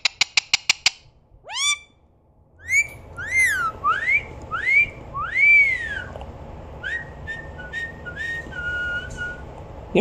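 Indian ringneck parakeet whistling: a quick run of about ten clicks, then a series of rising-and-falling whistled notes, with softer, lower whistles near the end.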